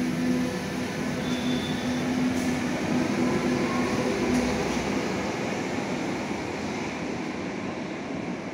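Berlin U-Bahn train pulling out of an underground station, running along the track with a steady hum for the first four seconds or so, then its noise easing off as it moves away into the tunnel.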